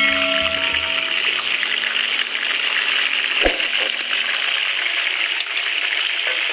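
Chicken pieces deep-frying in hot oil in a wok: a steady sizzle. A single knock comes about three and a half seconds in.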